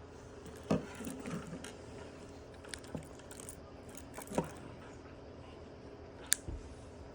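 Scattered light clicks and small plastic knocks of a car key fob being handled as its release catch is pressed and the metal emergency key is pulled out, with one sharper click a little after six seconds in.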